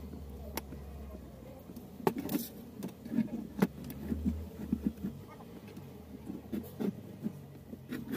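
Scattered light clicks and knocks of porcelain kit-kat fuse holders, wire and a small screwdriver being handled and set against a switch board during wiring.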